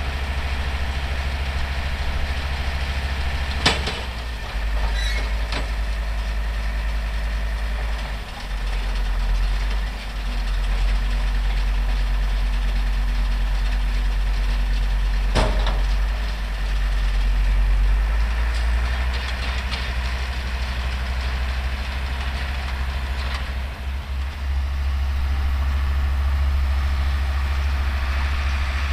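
Older Deutz tractor's diesel engine running steadily under load, powering a New Holland Cropcutter 644 round baler working through hay without interruption. Sharp knocks are heard about four seconds in and again around fifteen seconds.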